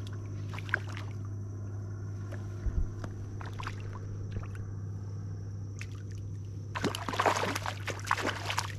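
A small juvenile tarpon hooked on a fly thrashes and splashes at the water's surface, a burst of loud splashing about two seconds long near the end, over a steady low hum.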